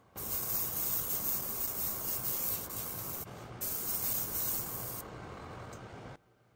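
Airbrush spraying thin black acrylic paint: a steady hiss of air and paint mist that eases briefly about three seconds in and cuts off just after six seconds.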